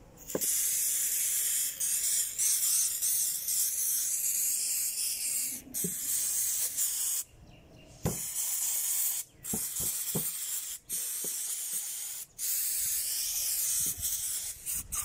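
Aerosol can of carburetor cleaner spraying onto rusted revolver parts to loosen the rust: a loud hiss in several long sprays with brief pauses between them, the longest pause about seven seconds in.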